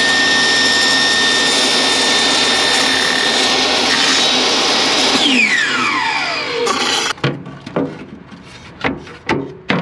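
Portable table saw running and cutting plywood, then switched off, its motor whine falling in pitch as the blade spins down about five seconds in. Then a series of short knocks as the cut plywood panel is fitted into place.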